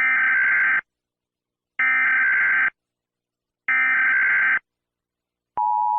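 Emergency Alert System header tones: three identical short bursts of digital data screech, about two seconds apart, then the steady two-tone attention signal starting near the end.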